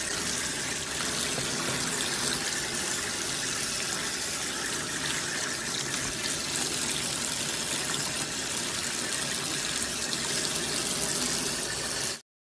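Water running steadily from a tap over a chimpanzee's hands into a trough. The sound cuts off suddenly near the end.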